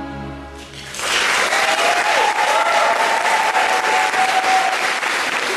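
The final held chord of the song's accompaniment fades out, and about a second in the audience breaks into steady applause.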